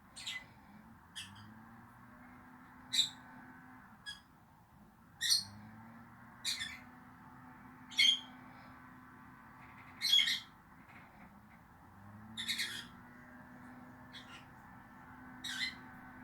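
Peach-faced lovebirds giving short, sharp, high-pitched calls, about a dozen spaced irregularly one to two seconds apart.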